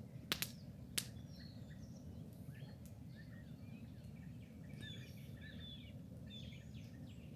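Small birds chirping and singing over a steady low rumble of outdoor ambience. Three sharp clicks sound in the first second, louder than everything else.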